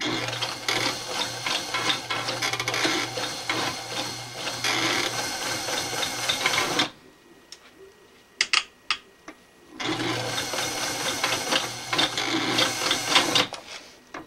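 Electric household sewing machine stitching through thick layers of heavy camouflage fabric: a steady motor hum with rapid needle clatter. It runs for about seven seconds, stops, gives a few separate clicks, then runs again for about four seconds.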